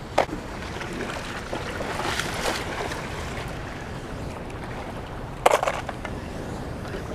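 Steady rush of churning water from a dam spillway outflow. A few sharp clicks and knocks from fishing gear being handled close to the microphone cut through it, the loudest cluster about five and a half seconds in.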